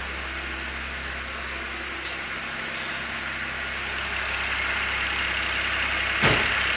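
BMW X6's N54 twin-turbo straight-six, freshly replaced, idling steadily and quietly with no knock, while a hiss slowly grows louder. A single sharp thump comes near the end.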